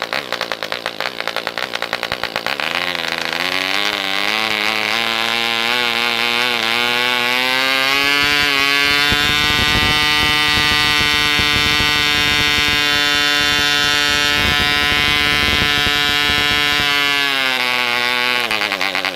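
Jaskolka Mk II 2.5 cc model diesel engine turning a propeller. It starts out running rough and uneven, then picks up over several seconds with some wobble into a smooth, steady high-pitched whine. As the compression lever is adjusted, it drops back to rough, slower running near the end.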